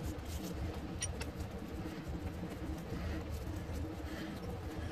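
Steady low machine hum in the workshop, with a few light metallic clicks as a large twist drill is handled and offered up to the mini lathe's tailstock drill chuck.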